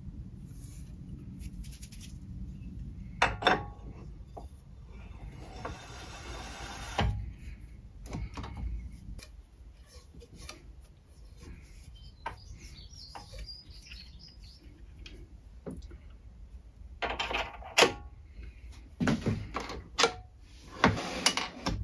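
Intermittent metallic clinks, knocks and scrapes of lathe parts and tools being handled and adjusted by hand, with the lathe not running. A cluster of sharper knocks comes near the end.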